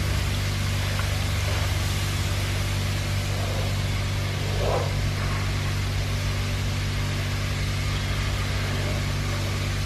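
A steady low mechanical hum, like a motor running, holding the same pitch throughout.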